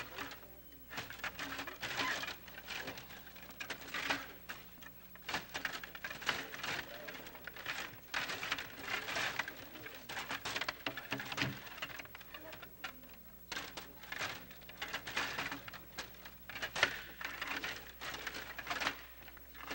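Stiga table hockey game in play: a rapid, irregular clatter of the control rods being pushed, pulled and spun, with the plastic players knocking about on the table.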